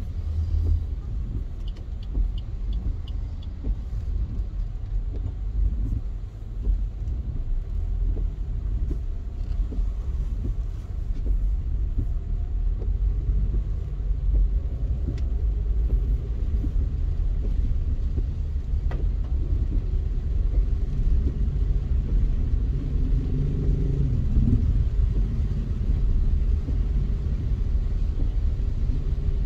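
Car driving in city traffic: a steady low rumble of engine and tyres, a little louder in the second half.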